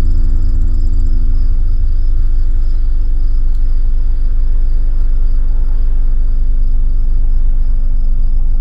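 A loud, steady low drone of several held tones, a dark ambient sound bed that starts and stops abruptly at edits, over a faint steady high insect chirring.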